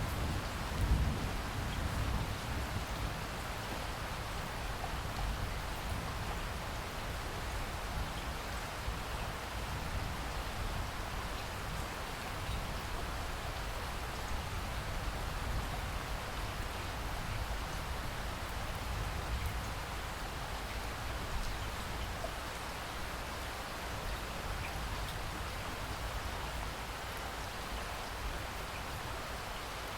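Steady rain falling, with a low rumble that swells about a second in and fades over the following few seconds.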